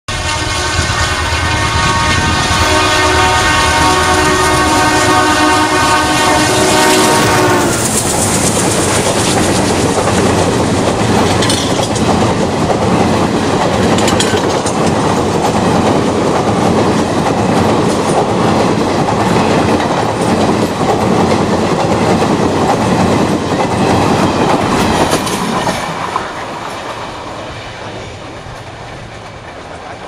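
Indian Railways WDM3A diesel locomotive sounding its horn in one long blast of several tones together for about eight seconds as it approaches. Then the locomotive and the express coaches rush past with wheels clattering over the rail joints, the noise falling away near the end as the train recedes.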